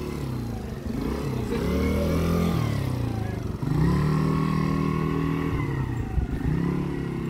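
Several small quad bike engines riding past, their pitch rising and falling several times as the riders speed up and slow down around a tight loop.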